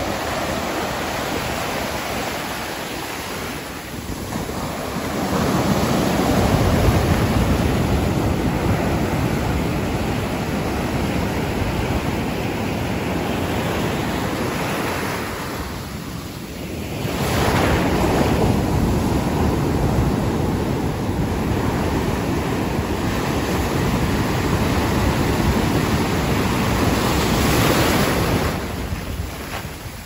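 Ocean surf breaking and washing up a sandy beach, a steady loud rush that swells twice, about eleven seconds apart, as big waves come in and ease between them.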